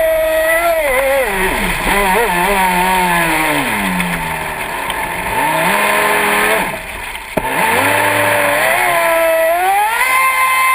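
Traxxas Spartan RC boat's brushless electric motor whining, heard from on board. Its pitch drops as the throttle eases off, stays low and quiet through the middle, then climbs back to a high whine near the end as the throttle opens again, over the hiss of water rushing past the hull.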